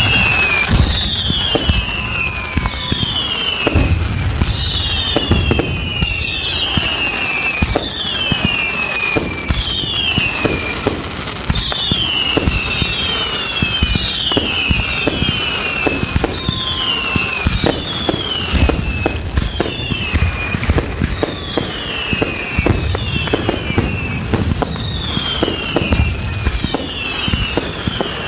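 Fireworks display: a long run of whistling fireworks, each whistle falling in pitch and lasting under a second, about one a second, over steady popping and crackling. Heavier low booms come now and then, most around a third of the way in and again toward the end.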